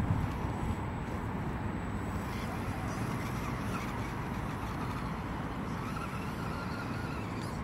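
Axial SCX10 RC crawler's electric motor and gears whirring as it drives over mud, under a steady low noise, with a faint thin whine near the end.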